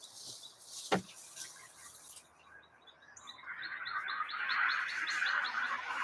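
Small songbirds chirping at feeders, with a quick run of short, high, evenly spaced chirps from about three seconds in. There is a sharp click about a second in, and a rustling noise that grows louder through the second half.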